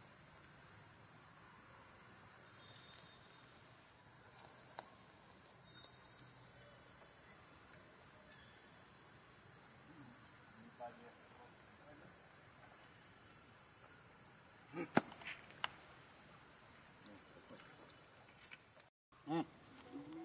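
Steady, high-pitched chorus of insects in forest undergrowth, with a few short sharp clicks about three quarters of the way through.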